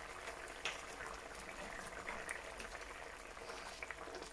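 A thickening sauce of cider, double cream and mustard bubbling in a pan as it reduces, faint, with many small scattered pops.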